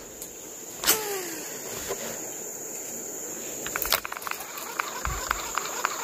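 Steady high-pitched insect drone. About a second in there is a sharp click with a short falling tone after it, and from about four seconds on a scatter of small clicks and ticks.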